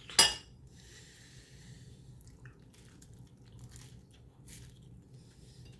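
A person bites into crunchy toasted garlic bread with one sharp, loud crunch right at the start, then chews quietly with faint crackling.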